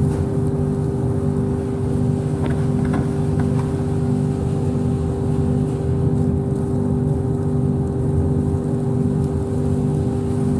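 Workshop dust extraction system running, a steady motor hum with two fixed tones over a low rumble. A few light ticks about three seconds in.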